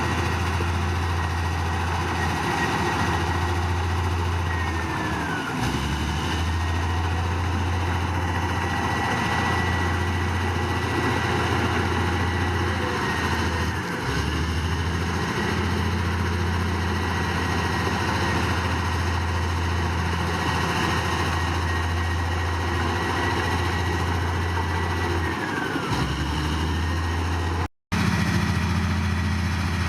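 Heavy diesel earthmoving engine running steadily with a high whistle over it. Its pitch sags briefly three times as it comes under load, and the sound breaks off for a split second near the end.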